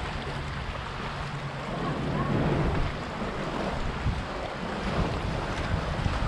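Wind buffeting the microphone over the wash of inlet water, with a low rumble that swells briefly about two seconds in.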